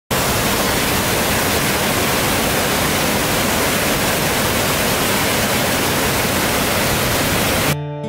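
Waterfall roar: a steady, even rush of falling water that cuts off suddenly near the end, where acoustic guitar music begins.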